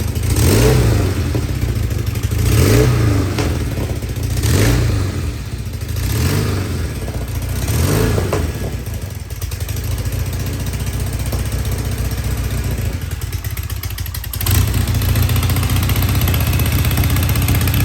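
Vintage British motorcycle's overhead-valve engine on one of its first starts after decades standing, its throttle blipped about five times roughly every two seconds, revs rising and falling. It then settles to steady running, a little louder from about two-thirds of the way through.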